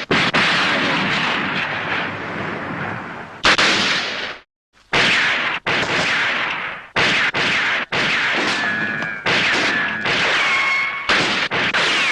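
TV-drama gunshot sound effects, one after another: a string of shots, each with a long decaying ring and some with a high whistling tone, joined by abrupt cuts, with a brief silent gap about four and a half seconds in.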